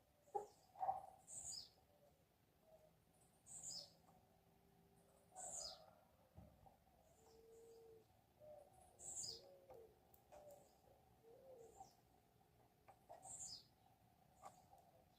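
Faint bird calls: a short, high two-part chirp repeated about every two to four seconds, with softer lower chirps in between.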